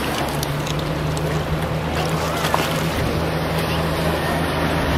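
Boat engine running steadily with a low, even hum, over the wash of river water.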